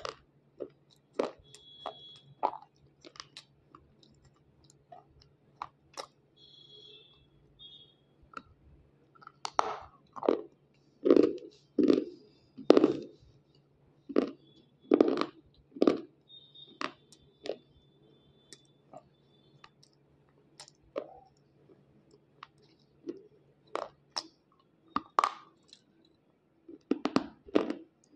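Crisp crunching and chewing of a dry, chalky white lump of unshaped slate bitten close to the microphone. Irregular sharp crunches come every second or so, loudest and most frequent between about 10 and 16 seconds in.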